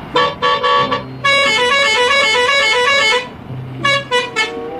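A vehicle horn honking: a few short toots, then a long blast whose pitch steps up and down like a tune, then more short toots near the end.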